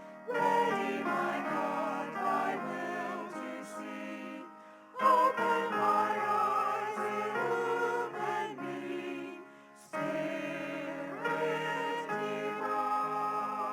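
Sung church music: voices singing with wavering pitch, in three phrases broken by brief pauses about five and ten seconds in.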